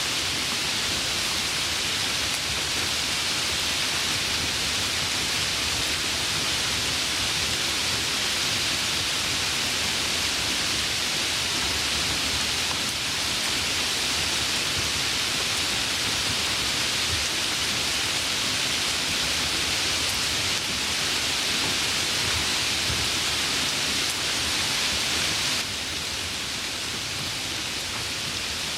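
Steady rainfall, an even hiss with no single drops standing out; it becomes a little quieter near the end.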